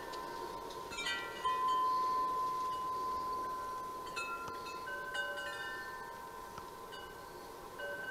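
Chime-like ringing tones, struck at irregular moments, several clear notes overlapping and ringing on. The strongest, a long held note, begins about one and a half seconds in.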